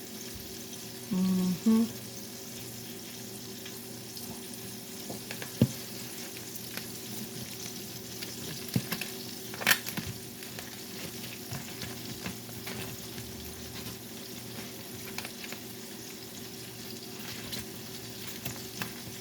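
Salmon pieces frying in a pan: a steady sizzle with scattered crackles and a few sharp clicks.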